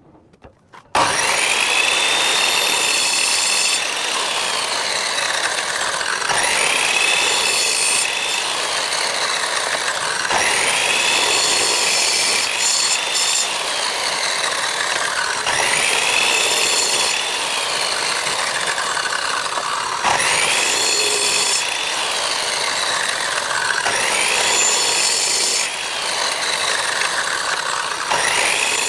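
Electric power tool cutting or sanding wood, starting about a second in. Its motor whine drops and recovers about every four seconds as it bites into the wood on each pass, under a continuous rasping noise.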